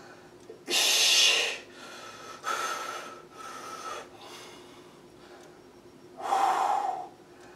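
A man breathing hard through the effort of dumbbell bench presses: four forceful, hissing breaths, the loudest about a second in and another near the end.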